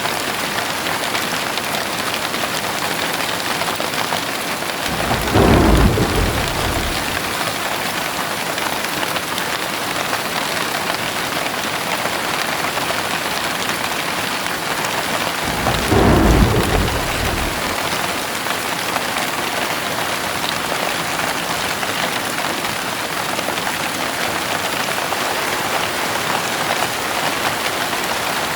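Steady rain falling in an even hiss, with thunder rumbling twice, about five seconds in and again about sixteen seconds in.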